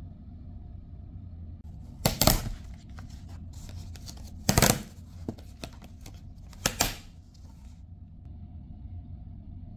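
Clear plastic clamshell packaging crackling and tearing as it is opened by hand: three loud bursts about two seconds apart, with smaller crinkles between them, over a steady low rumble.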